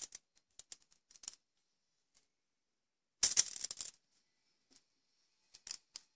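Aluminium foil lining a tray crinkling and rustling as filled potato skins are set down and shifted on it, in short scattered crinkles with one longer burst about three seconds in.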